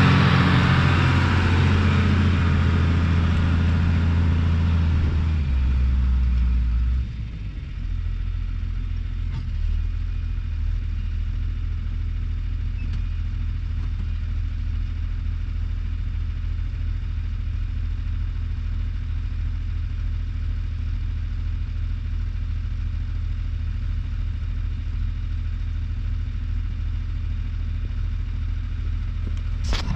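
Tractor engine running steadily while pulling a bed plough. About six seconds in it drops in pitch and level, dropping again about a second later, then runs on evenly and more quietly.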